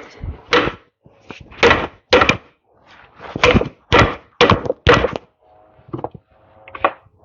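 A string of about nine irregular knocks and clunks: metal tools and parts being struck or handled during tractor disassembly.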